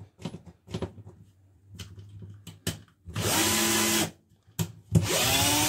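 Bosch GSB 120-LI 12 V cordless drill-driver backing a long wood screw out on low speed: light clicks and knocks, then two short runs of the motor about a second each, the second spinning up with a rising whine.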